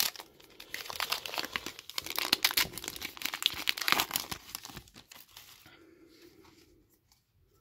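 A trading card pack wrapper being torn open and crumpled by hand: a dense run of crinkling that fades out after about five seconds.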